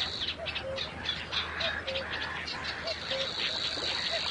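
Wetland birds calling from a reed bed: rapid high chattering over a steady high hiss, with a short low note repeated about twice a second.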